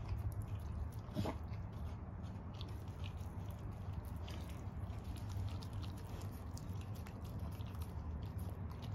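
Samoyed gnawing and licking a pork bone: a run of small clicks and scrapes of teeth on bone, with one louder click about a second in.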